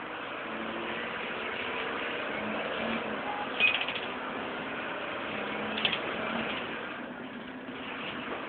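Wright Cadet-bodied DAF single-deck bus running, heard from inside the passenger saloon: a steady engine drone and road noise, with two brief sharp rattles at about three and a half and six seconds in.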